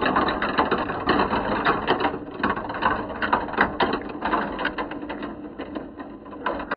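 Many small plastic balls rolling down a Kumi Kumi Slope plastic marble run, rattling and clacking against the chutes and each other as they pile into a plastic bowl. It is a dense patter of sharp clicks and cuts off suddenly at the end.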